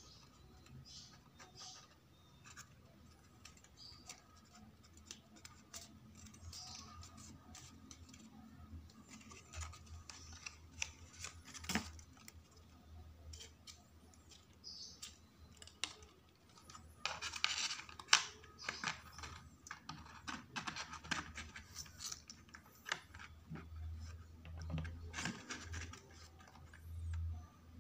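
Paper and thin card being handled and shaped: soft rustling, scratching and small clicks, busiest and loudest a little past the middle with one sharp click.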